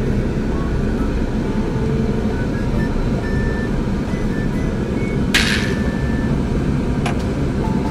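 Car road noise, a steady rumble while driving, under quiet background music. A brief sharp hiss about five seconds in, and a faint click near the end.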